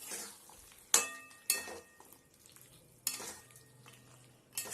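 A spatula stirring a thick spinach and chicken masala in a kadai during stir-frying. It knocks and scrapes against the pan several times, one knock with a short metallic ring, over a light sizzle.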